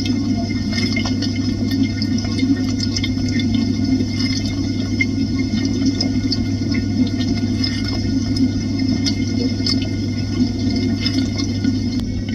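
Water spraying and splashing over the dishes inside a running IFB dishwasher during its quick wash cycle, heard from inside the wash tub, over the steady low hum of its wash pump.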